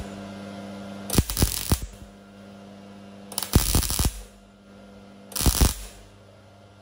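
MIG welding arc from an ESAB 215ic crackling in three short trigger bursts, a pause between each. The wire is tacked into a hole in thin 16-gauge steel a little at a time, the puddle left to cool between tacks until the hole is plugged. A faint steady hum fills the pauses.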